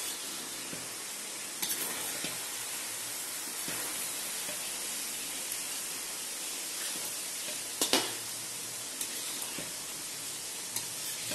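Mixed vegetables sizzling as they dry-fry in an aluminium kadai with no water added, while a metal spatula stirs and scrapes through them. A few sharp clanks of the spatula on the pan stand out, the loudest about eight seconds in.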